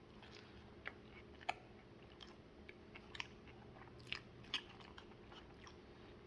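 A person quietly chewing a crispy chicken sandwich, with a few soft crunches and mouth clicks scattered through.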